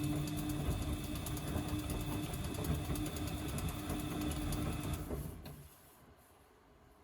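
Washing machine motor running for about five seconds with a hum and a weird crackle, then stopping. The crackle is thought by others to be the motor brushes wearing out again, or the motor itself going bad.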